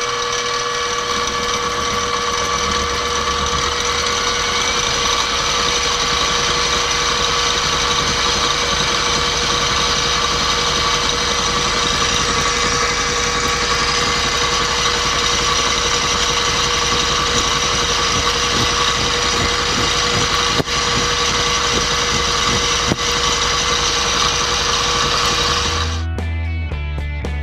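Benchtop milling machine face-milling metal bar stock with a half-inch roughing (corn cob) end mill: a steady motor and spindle whine with cutting noise as the cutter takes a roughing pass across the top surface. Near the end the machine sound cuts off and music starts.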